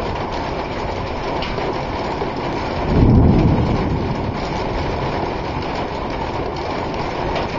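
Steady thunderstorm noise of rain and wind, with a low rumble swelling up about three seconds in and fading over the next second.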